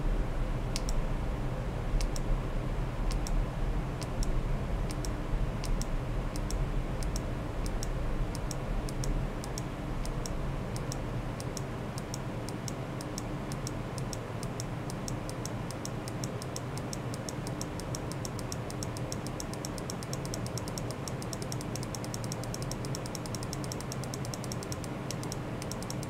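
Sharp, high-pitched clicks, about one a second at first and coming steadily faster until they run together as a rapid ticking, then stopping near the end, over a steady low hum.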